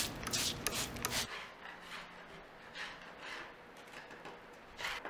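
Hand scraper blade scraping stripper-softened, bubbled paint off a painted tabletop in several short rasping strokes, heaviest in the first second.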